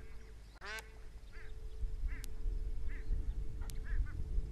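Egyptian geese calling: a series of short honks, roughly one a second, the loudest coming just under a second in.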